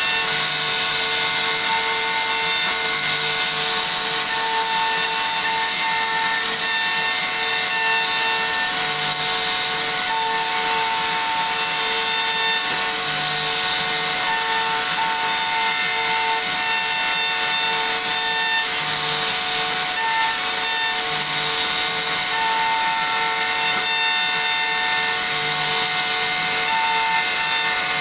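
CNC router spindle carving a wooden door panel: a steady high whine over the hiss of the bit cutting wood, with a tone that keeps breaking off and coming back.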